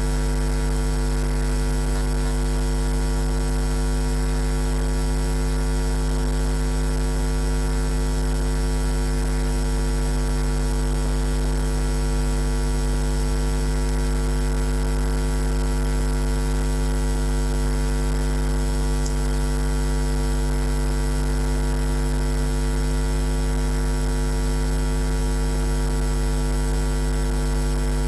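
Steady electrical mains hum: a low, unchanging buzz with many evenly spaced higher overtones over a faint hiss.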